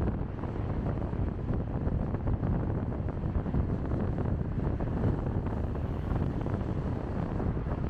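Steady low road and wind noise of a car driving, with no distinct engine note or other event standing out.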